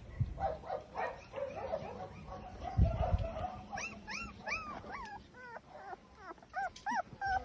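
Several tiny puppies whimpering and squealing, a run of short high-pitched cries that each rise and fall, growing louder and longer about halfway through. A low thump about three seconds in.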